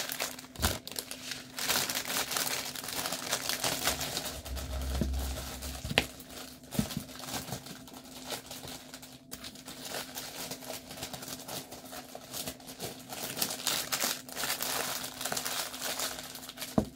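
Clear plastic packaging crinkling and rustling as it is handled, with a few sharp clicks scattered through.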